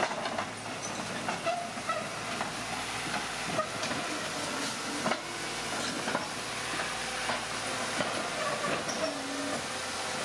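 Bulldozer working: a steady noisy rumble with short metallic squeaks and clanks scattered through it, typical of a crawler's steel tracks.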